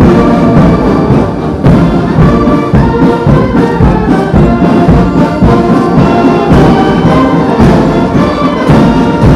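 Brass band music with a steady beat, trombones and trumpets prominent.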